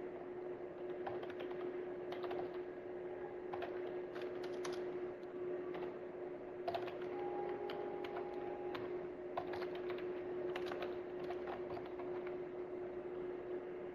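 Computer keyboard typing: irregular keystrokes with short pauses, over a steady low hum.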